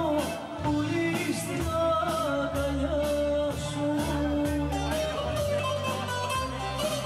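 Live band music over a PA system: drums keep a steady beat under a bass line and a sustained melody that slides between notes.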